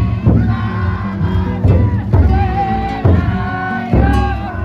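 A futon daiko drum float's taiko drum beaten in heavy strokes about once a second, under a chanted festival song of long held notes.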